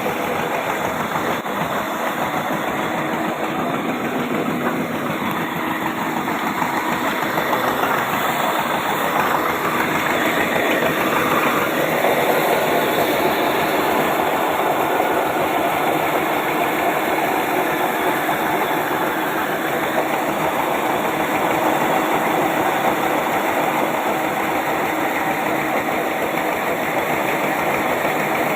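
Sawmill saw machine running steadily, a continuous mechanical drone that grows slightly louder about ten to twelve seconds in.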